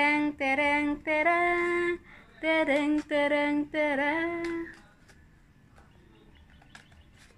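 A woman singing a short tune of six held notes, without words, over about five seconds. A few faint clicks follow near the end.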